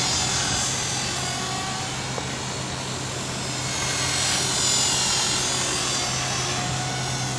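Skyartec Mosquito electric RC helicopter in flight: a steady rotor buzz with a high motor whine that rises and falls a little in pitch.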